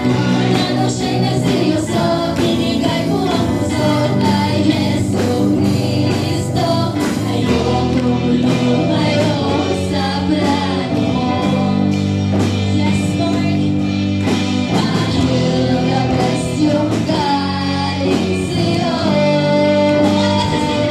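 Live band playing a song, with two young women singing the melody into microphones over electric guitar, bass guitar, keyboard and drums. The drum hits and the singing run without a break.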